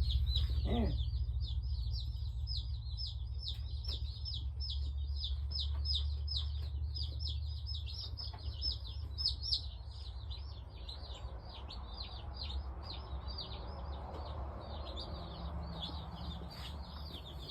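A brood of day-old Cornish Cross broiler chicks peeping together, a rapid unbroken run of high chirps several a second, over a steady low hum.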